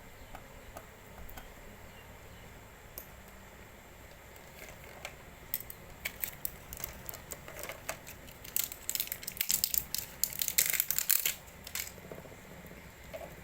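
Plastic packaging crinkling and crackling as a parcel is unwrapped and handled. It starts with a few scattered clicks, then builds to a dense run of crackles that is loudest a few seconds before the end and then eases off.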